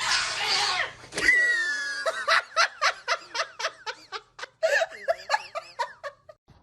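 A person laughing hard in a long run of short, rhythmic bursts, about three a second, opening with a loud shrill shriek.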